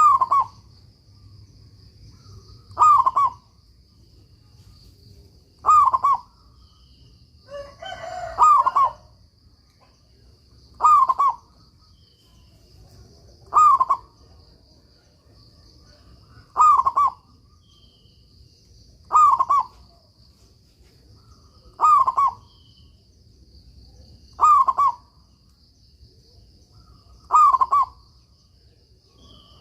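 Zebra dove (perkutut) cooing: a short phrase repeated at a steady pace, about one every two and a half to three seconds, eleven times in all. A faint steady high whine runs underneath, and a brief rougher, lower call comes in about eight seconds in.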